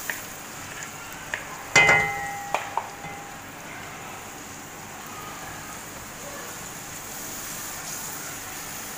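Blended tomato purée sizzling in hot oil in a deep pan while being stirred with a spatula, a steady hiss. About two seconds in comes one loud metallic clang that rings briefly, with a few lighter knocks around it.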